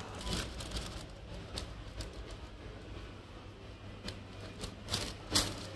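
Plastic ice-cream wrappers crinkling as they are handled in a shopping cart, in short scattered crackles, with a low steady hum underneath.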